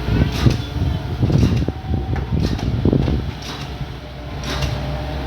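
Hydraulic excavator's diesel engine running steadily, with irregular knocks and clunks from the working bucket and arm during the first three seconds, then a little quieter.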